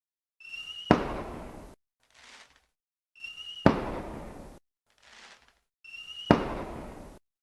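A firework whistles briefly, then goes off with a sharp bang and a hissing tail that cuts off abruptly, followed by a fainter short hiss. The same whistle-and-bang repeats three times, evenly spaced about every two and a half seconds.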